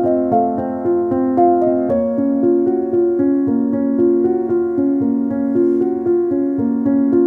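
Background music: a keyboard melody of evenly paced notes over sustained chords, with a change of harmony about two seconds in.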